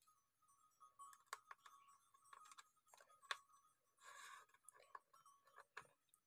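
Faint clicks and taps of wires and parts being handled in an opened battery case, with a brief rustle about four seconds in, over a faint steady high whine.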